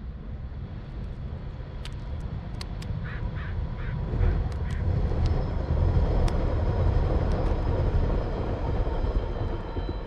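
Low rumble of passing traffic that swells to its loudest in the second half. A crow calls four times in quick succession about three seconds in, and sharp ticks of beaks pecking at the pavement are heard here and there.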